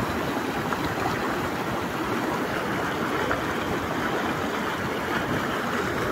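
Steady rushing of a fast-flowing stream.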